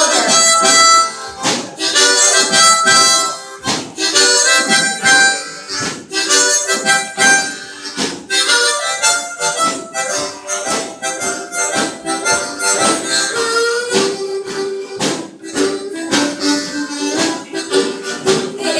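Several harmonicas played together as a group, chords and melody lines overlapping over a steady rhythmic pulse of sharp note attacks.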